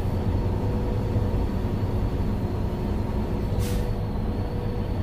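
Steady low drone of a truck's engine and tyres heard inside the cab while cruising on the highway. A brief hiss comes about three and a half seconds in.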